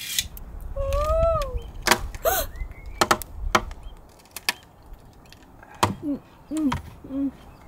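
Sharp clicks and knocks from hand work on boat fittings, with a few short squeaks that bend up and down in pitch: one about a second in, another near two and a half seconds, and several near the end.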